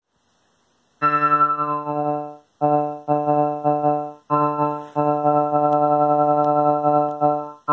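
Moog Subharmonicon analog synthesizer playing a sequenced pattern from an Endorphin.es sequencer. A low note is repeated in quick rhythmic pulses, starting about a second in, in phrases broken by short gaps.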